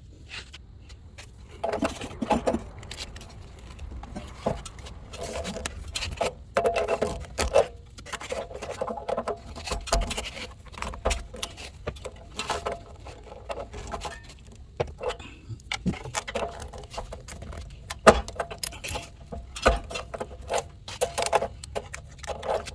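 A wrench working a new pressure relief valve into a water heater's threaded port: irregular metallic clinks, knocks and scrapes of tool on fitting as the valve is turned tight.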